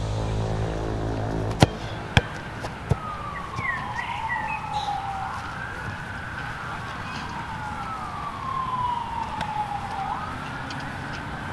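A siren wailing, its pitch sliding slowly up and down in long sweeps and sometimes overlapping a second wail, from about two seconds in. Just before it come three sharp knocks, the first the loudest.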